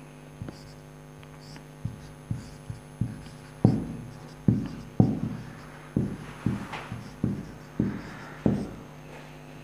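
Whiteboard marker writing: its tip taps the board in about fourteen short, sharp strokes at uneven intervals, over a steady low hum.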